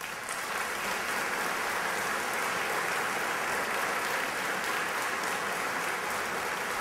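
Audience applauding: many people clapping in a dense, steady stream that starts abruptly.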